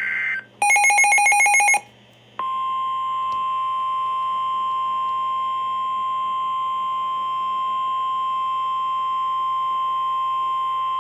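NOAA Weather Radio emergency alert: a short, buzzy, rapidly pulsing burst of SAME digital header data, then a pause, then the steady 1050 Hz warning alarm tone. The tone holds for about nine seconds and cuts off sharply.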